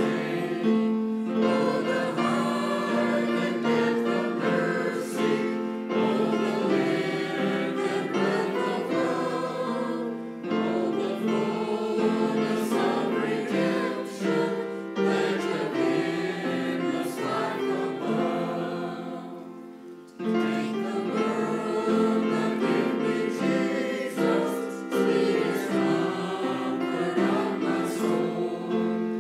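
Mixed-voice church choir singing an anthem in parts, with keyboard accompaniment. The singing stops briefly between phrases about ten and twenty seconds in.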